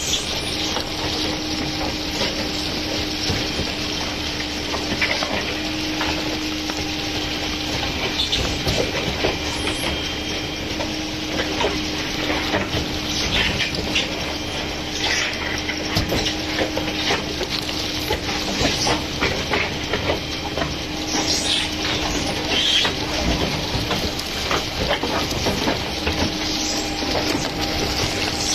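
Truck-mounted concrete mixer pump running steadily, a continuous mechanical wash of noise under a steady low hum, with scattered clatters and knocks throughout.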